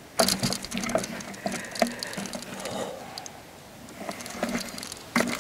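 Close rustling and clicking of camouflage clothing and gear being handled, as the hunter moves in the tree stand, with a sharp knock about a quarter second in and more sharp clicks through the rest.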